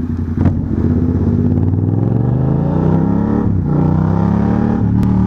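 Yamaha MT-07's parallel-twin engine pulling under acceleration, heard from the rider's seat. Its note climbs, falls sharply about three and a half seconds in, then climbs again.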